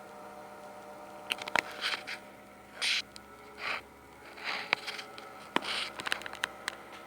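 Corsair computer power supply giving off a steady whine made of several pitches at once, the noise the owner calls super loud. Through the middle, a scatter of sharp clicks and short scraping rustles sounds over it.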